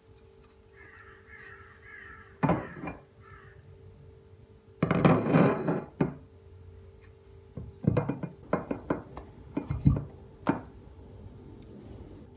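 Thin plastic food container being flexed and squeaked by hand as a chilled block of halva is worked loose, then a loud crackling rustle about five seconds in as it comes free. After that, a run of light knocks and clicks of the plastic tub and a plate on a countertop.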